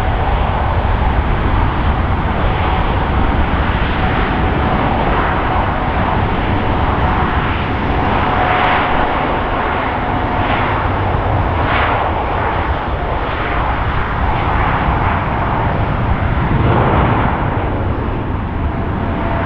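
A Boeing 787's jet engines running at high power as the airliner rolls down the runway for takeoff: a steady, loud rushing rumble with a faint steady whine above it.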